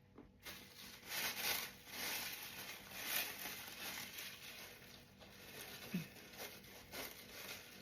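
Irregular crinkling and rustling of something being handled, with soft surges.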